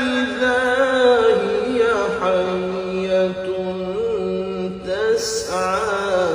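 Male voice chanting Quran recitation in melodic tajweed style, with long held, ornamented notes drawn out on the vowels.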